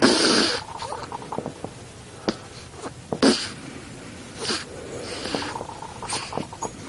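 A ten-day-old newborn snoring: short, noisy snoring breaths roughly once a second, the loudest at the very start and about three seconds in, with small clicks between them.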